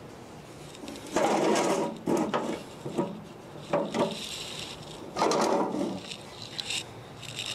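Scraping and clattering of hands working at the sheet-metal base of a horizontal cutoff saw, in five or so short bursts; the loudest come about a second in and about five seconds in.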